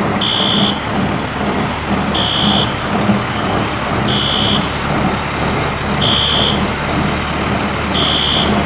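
Fire alarm sounding a short, high beep about every two seconds, over a steady rushing noise and a low rumble.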